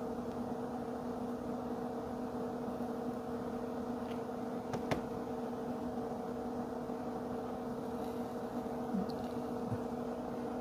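Steady mechanical hum of a small fan or motor, with a single faint click about five seconds in.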